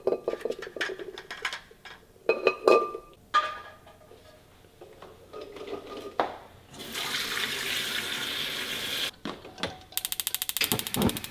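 Dishes clinking, then a water tap running into a sink for a couple of seconds, followed by a quick rattle near the end.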